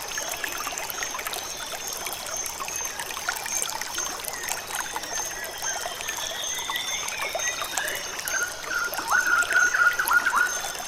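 Water trickling steadily, with a run of short, high chirps near the end.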